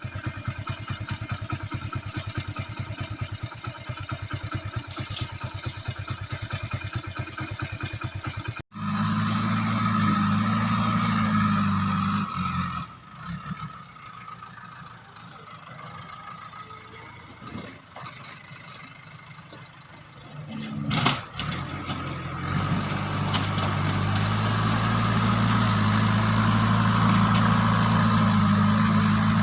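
JCB 3DX backhoe loader's diesel engine running, with a rapid, even firing pulse at first, then an abrupt change about nine seconds in to a louder, deeper engine note. The engine drops lower for several seconds in the middle, a sharp knock comes about 21 seconds in, and the engine builds up loud again near the end.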